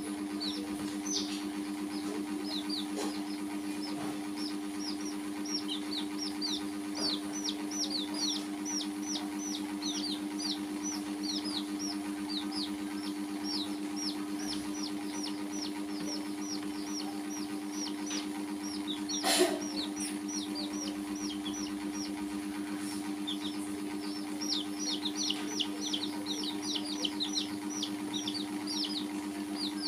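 Baby chicks peeping, a steady stream of short falling cheeps, thinning briefly in the middle and thickest near the end, over a steady low mechanical hum. A single sharp knock about two-thirds of the way through is the loudest sound.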